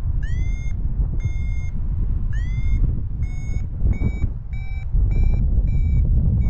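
Paragliding variometer beeping its climb tone, short beeps that come faster and slightly higher in pitch from about three seconds in, the sign of a strengthening climb in a thermal. Heavy wind noise on the microphone underneath.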